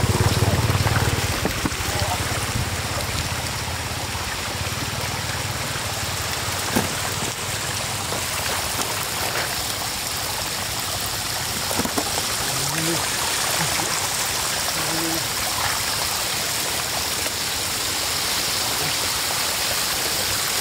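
Shallow floodwater running and trickling over a dirt road, a steady rush of water, with a low rumble in the first second or two and a few faint knocks.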